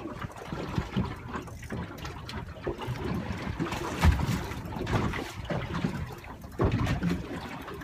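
Water lapping and slapping against the hull of a small boat, with irregular dull knocks.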